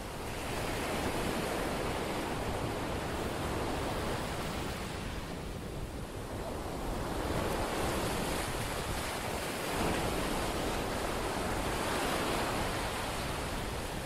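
Surf breaking and washing up the beach in strong wind, with wind rumbling on the microphone; the rushing noise swells and eases over several seconds.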